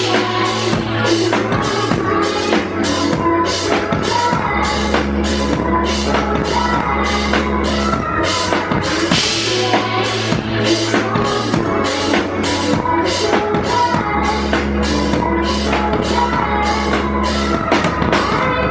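Music with a steady drum-kit beat and long, deep bass notes.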